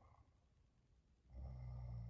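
Woman snoring in her sleep: a soft breath right at the start, then a loud, low-pitched snore beginning about a second and a half in, part of a steady rhythm of snores about three seconds apart.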